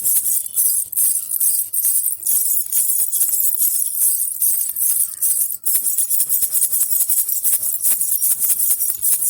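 Baby rattle (jhunjhuna) with small jingle bells shaken continuously: a bright, uneven jingling of many quick shakes, with a brief break about five and a half seconds in.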